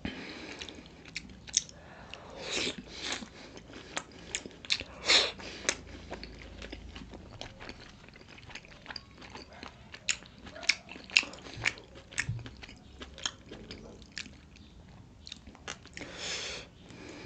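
Close-miked eating of pork momos (steamed dumplings): biting and chewing with many sharp, wet mouth clicks and smacks. A few longer wet sounds come about two seconds in, about five seconds in, and near the end.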